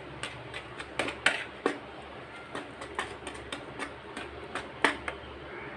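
Wire whisk stirring dry gram flour and rice flour in a mixing bowl, with irregular light clicks and taps as the wires hit the bowl.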